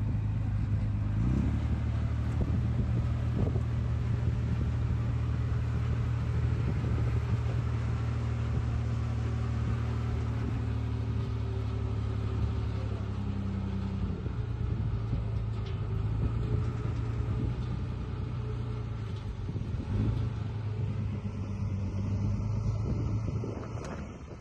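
Diesel engine of heavy earthmoving equipment running steadily with a low hum, its pitch shifting slightly about a second in and again midway, then falling away near the end.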